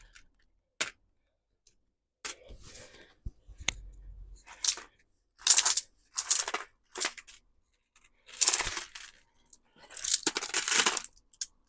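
Loose coins clinking and clattering in repeated short bursts as a strong fishing magnet is worked over a pile of copper coins, the copper-plated steel ones snapping up onto the magnet. The loudest bursts come about halfway through and near the end.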